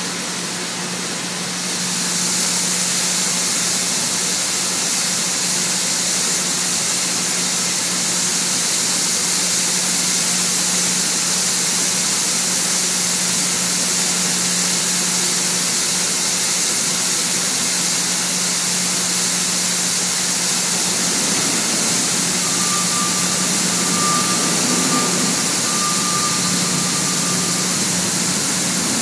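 Granular product rushing steadily from an overhead load-out spout into a hopper-bottom grain trailer, over a constant machinery hum. A thin high whine joins in for a few seconds near the end.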